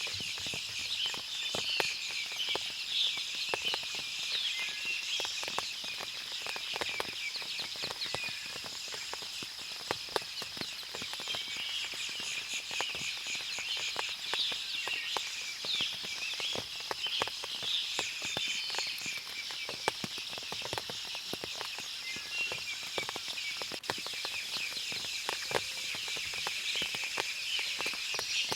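Forest ambience after rain: many birds chirping and calling over a steady high-pitched hiss, with frequent light taps of water dripping from the trees.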